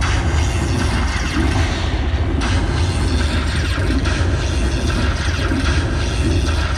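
Lightning Buffalo Link slot machine playing its electronic win music and effects as the bonus win tallies up after the free spins, over a steady low rumble. The upper part of the mix brightens a couple of seconds in.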